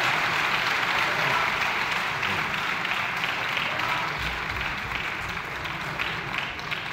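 Members of the House of Representatives applauding in the chamber at the close of a committee report. The clapping is dense at first and thins out over the last couple of seconds.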